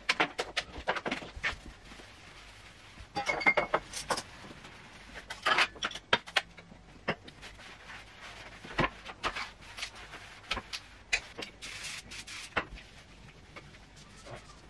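Household objects being handled and set down on kitchen worktops: scattered knocks and clicks, with a few short scrubbing stretches of a cloth wiping surfaces.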